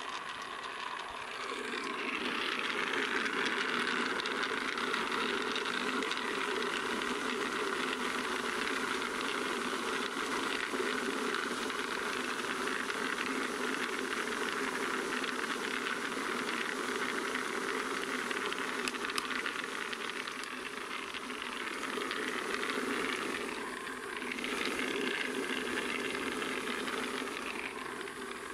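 Rotating star-roller drum with small round firework stars tumbling inside as they are rolled, a steady hissing rattle. It swells about a second and a half in and dips briefly near the end.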